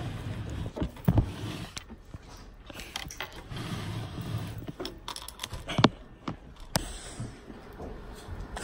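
Handling noise from a phone held close to its microphone: a few sharp knocks and some scraping and rubbing.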